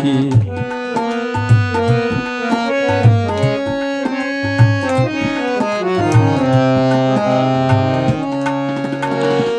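Instrumental interlude: a harmonium plays a melody of stepping notes over tabla accompaniment, with the tabla's deep bass strokes and sharp treble strokes keeping a steady rhythm.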